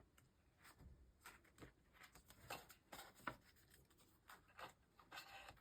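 Faint, irregular rustling and light clicks of paper planner inserts and dividers being handled and sorted.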